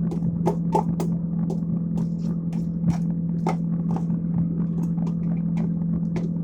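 A pot of water boiling on a stove, with irregular small pops and clicks over a steady low hum.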